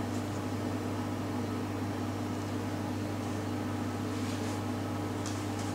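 Steady low machine hum with a background hiss, unchanging throughout.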